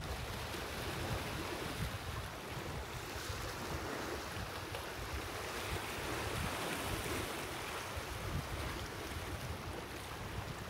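Strong wind blowing over the microphone: a steady rushing hiss with irregular low rumbling buffets.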